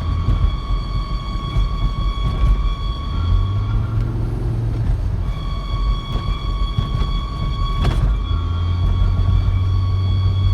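Volvo V70 XC squealing while driving: a steady, high-pitched squeal over the rumble of the car on the road. The squeal comes only when the car is rolling, not at idle. It drops out for a couple of seconds in the middle, then comes back, and there is one sharp click shortly after.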